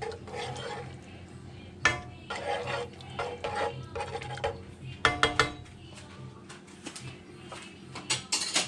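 A metal spoon stirring and scraping through a liquid mushroom and demi-glace sauce in a pan, working the demi-glace base in to dissolve it. The spoon clinks sharply against the pan about two seconds in, around five seconds in and twice near the end.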